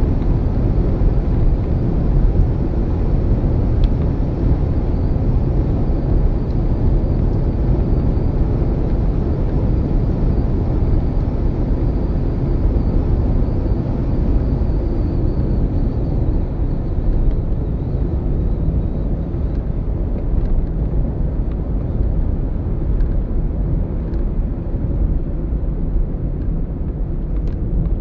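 Steady low rumble of a car driving at highway speed, heard from inside the cabin: road, tyre and engine noise.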